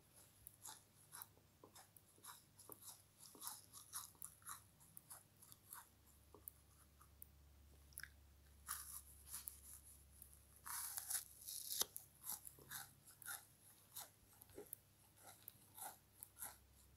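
Frozen french fries crunching: a long run of short, sharp, irregular cracks, with a denser, louder burst of crunching about eleven seconds in.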